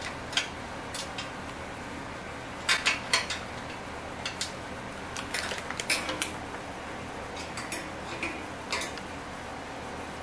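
Scattered metallic clinks and clicks as a brass knob handle is screwed by hand onto the edge of a thin metal cookie sheet, the tray rattling against the hardware. The loudest cluster of clinks comes about three seconds in.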